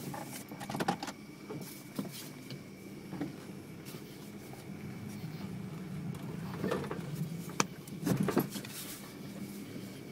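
1993 Toyota Corolla's four-cylinder engine idling steadily, with a few short knocks and a sharp click from handling or footsteps near it.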